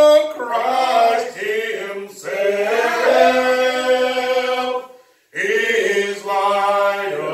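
Voices singing a slow song in long held notes, with a short break for breath about five seconds in.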